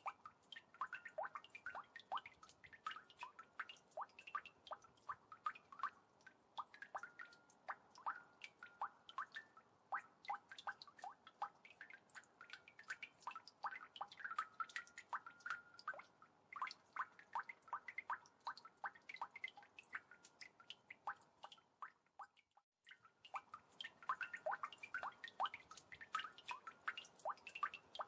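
Water droplets dripping, many small plinks landing several a second in an uneven patter. There is a brief break about two-thirds of the way through, then the dripping resumes.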